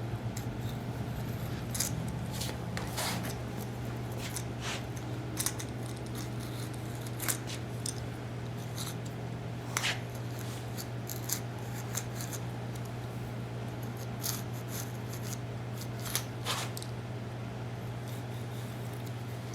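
Grout being scraped out of the joints around a luxury vinyl floor tile with a hand tool: irregular sharp scratches and clicks, a second or so apart, over a steady low hum.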